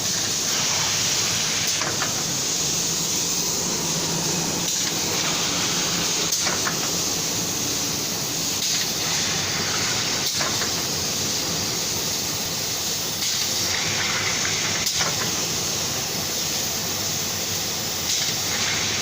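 Hot-air double-track plastic sheet welder running, its hot-air blower giving a steady hiss with a few faint clicks.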